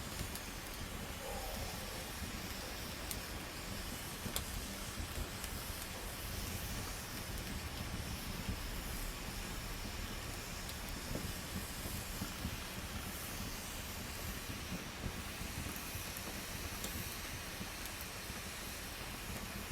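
Wood campfire burning with a steady hiss and scattered sharp crackles.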